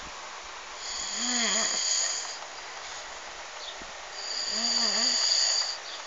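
A man snoring heavily: two long snores about three seconds apart.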